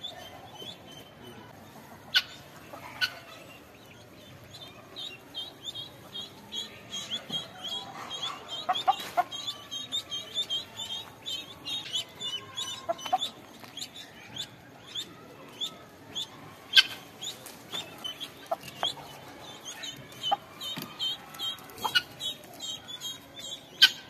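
Chickens clucking softly, with a run of short high peeps starting a few seconds in and a few sharp clicks.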